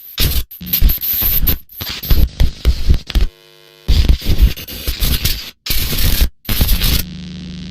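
Harsh static and distortion noise, chopped into bursts with sudden dropouts: broadcast static and glitch effects. A short buzzing tone comes about three seconds in, and near the end the noise settles into a steady hum with hiss.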